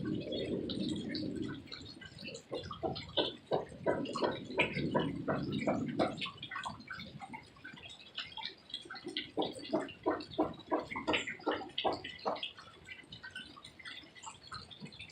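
Water dripping and splashing in irregular drops during heavy rain. A low rumble runs under the drops for the first second and a half and again from about four to six seconds in.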